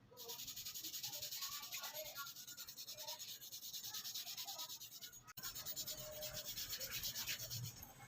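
Hand sanding on the old hammer: fast, even back-and-forth rubbing strokes of abrasive, briefly cut about five seconds in and then going on.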